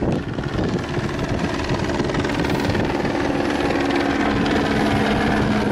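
Police helicopter circling overhead: a steady drone of rotor blades and engine.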